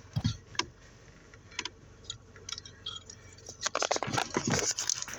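Scattered light clicks and taps with rustling from handling under a car's dashboard, and a louder burst of scuffling about four seconds in.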